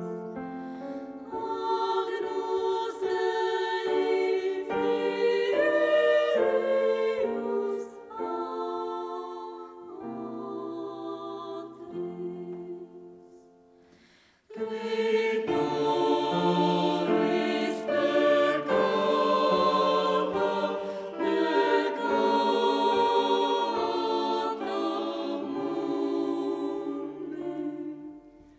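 Choir singing slow sacred music in long held chords. It fades out about halfway through, a new passage starts straight after, and it fades out again near the end.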